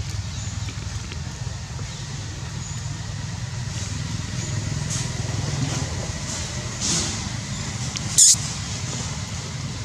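A steady low motor rumble, like an engine running nearby, with a brief sharp high-pitched noise about eight seconds in.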